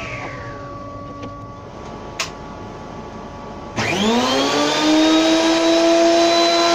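A table saw winding down after being switched off, its pitch falling over the first second or so, and a single sharp knock about two seconds in. About four seconds in, a benchtop planer-thicknesser starts up, its whine rising quickly to a steady running pitch.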